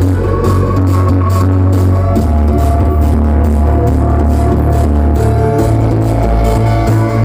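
Loud electronic dance music with a heavy bass line and a steady beat.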